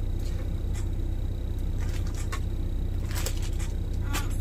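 A knife cutting carrots on a cutting board: several irregular sharp knocks, the clearest about three seconds in. Under them runs the steady low rumble of the truck's engine.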